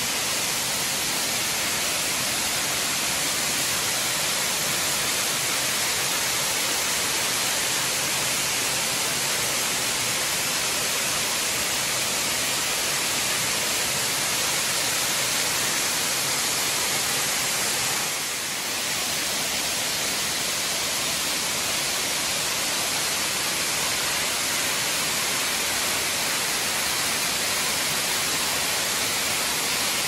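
Waterfall pouring over rocks: a steady, even rush of falling water that dips briefly about two-thirds of the way through.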